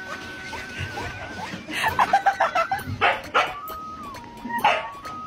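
Husky yipping and barking in short bursts from about two seconds in, over background music.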